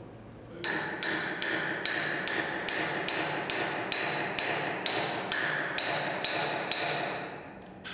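Steady hammer blows, about three a second, on the handle of a spanner wrench fitted to a surface grinder's left-hand-threaded wheel flange, each blow ringing metallically. The flange is jammed over-tight because the grinding wheel was stopped violently, so it takes this much force to free it.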